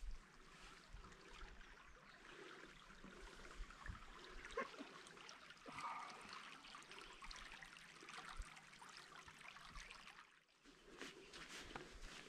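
Faint trickling of a small swamp stream.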